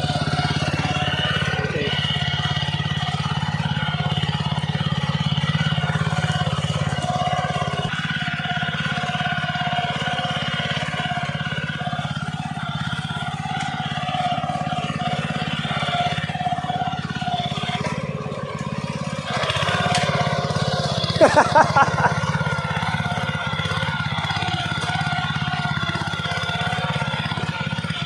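Gasoline engine of an ASIA walk-behind hand tractor running steadily in gear as the tractor is driven along. About two-thirds of the way through there is a quick run of about five sharp, loud knocks.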